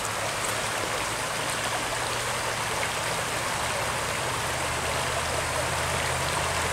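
Shallow creek running over a cobble riffle: a steady rush of rippling water.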